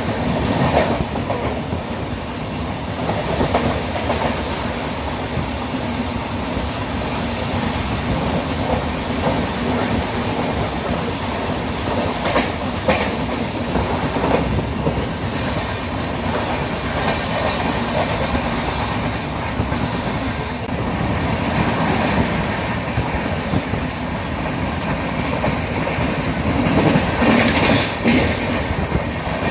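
Pallavan Express passenger train running along the track: a steady rumble with occasional brief clatters, a little louder near the end.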